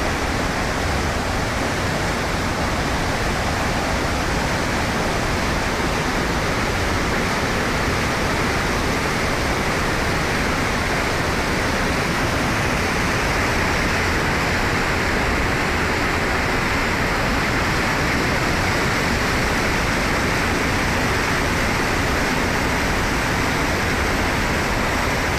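Floodwater from a river in spate rushing steadily, an even, unbroken noise.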